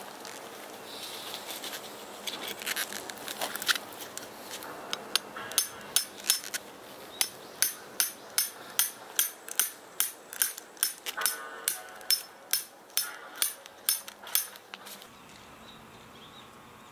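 Steel tent peg being hammered into gravel: after a few seconds of tent fabric rustling, a steady run of sharp metallic strikes, about two a second, that stops about fifteen seconds in.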